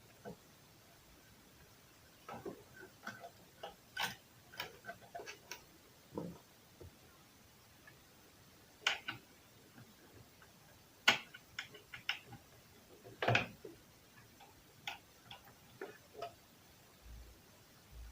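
Light, irregular metal clicks and taps from a small screwdriver turning out the screws of a sewing machine's needle plate, with the screws and plate being handled.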